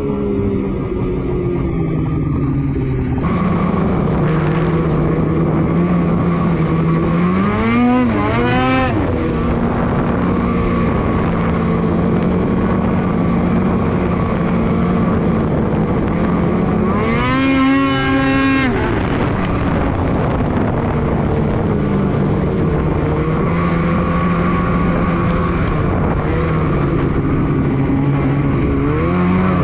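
Polaris Switchback Assault 850 snowmobile's two-stroke twin engine running at a steady cruise, heard from onboard. The revs climb and drop back three times: about eight seconds in, again around seventeen seconds, and near the end.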